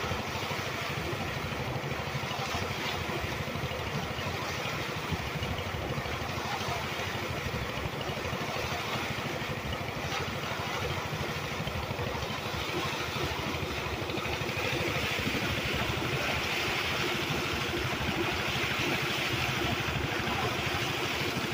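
Heavy water gushing from an engine-driven pump's outlet and splashing against brick walls, with the pump's engine running steadily underneath. The splashing grows louder and hissier about two-thirds of the way through.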